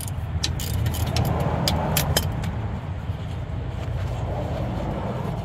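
A few sharp metallic clicks and clinks from a socket ratchet on a brake caliper bracket bolt, bunched in the first two seconds or so, over a steady low vehicle rumble.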